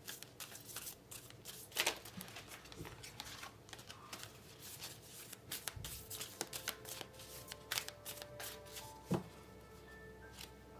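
A deck of tarot cards being shuffled by hand: a run of quick, irregular papery clicks and riffles. Soft background music with steady held notes comes in about halfway through.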